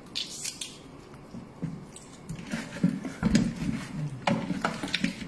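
Raw chicken wings kneaded and squeezed by hand in a plastic basin: irregular wet squishes with a few soft knocks against the bowl, loudest a little past halfway.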